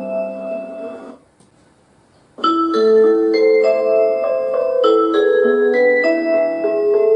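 Background music played on piano or keyboard with a mallet-like tone; it fades out about a second in, pauses briefly, and a new phrase of notes starts about two and a half seconds in.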